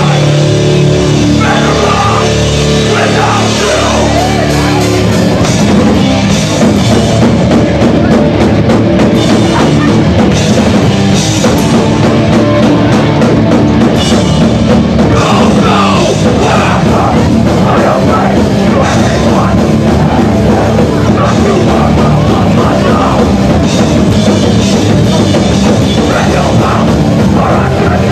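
A hardcore punk band playing live at high volume: distorted guitars, bass and a drum kit. Chords are held for the first few seconds, then about five seconds in the band moves into a denser, faster passage.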